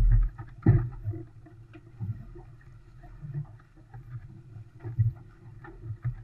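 An Olson 25 sailboat under way in chop: a steady low rumble of water along the hull, broken by irregular thumps and knocks. The two loudest thumps come right at the start and just under a second in.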